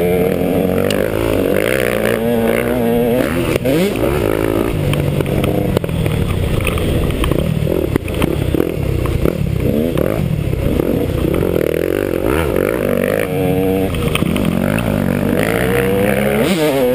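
Dirt bike engine running hard, revving up and down with its pitch rising and falling again and again.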